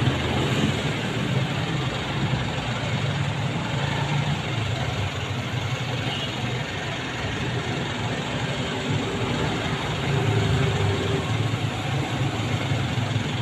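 Street traffic: motorcycles and cars running on the road, a steady engine rumble with road hiss.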